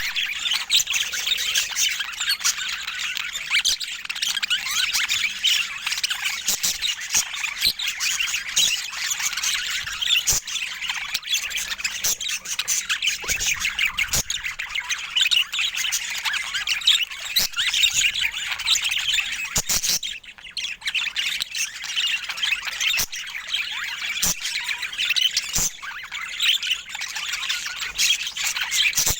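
Budgerigars chattering continuously in dense, overlapping calls, with a short lull about twenty seconds in.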